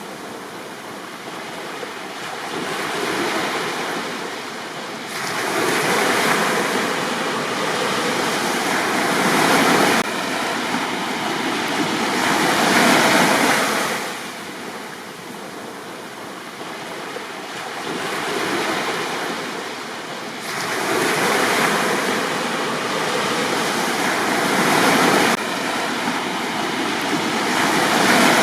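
Sea waves breaking on a beach, the surf swelling and washing back in surges a few seconds apart.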